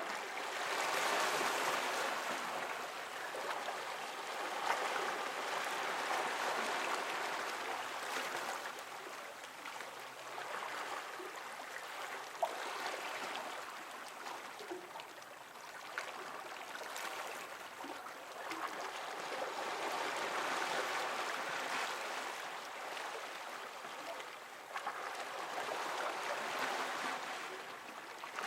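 Water washing and lapping against rocks, picked up by a stereo microphone set close to the water. It swells and eases in slow surges every few seconds, with a few small ticks and splashes.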